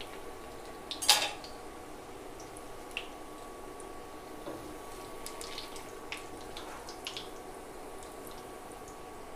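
Battered green chillies (mirchi bajji) deep-frying in hot oil in a kadai: a steady sizzle with scattered crackles and pops, over a faint steady high whine. A sharp clink about a second in is the loudest sound. This is the first fry, taking the chillies only to about three-quarters done.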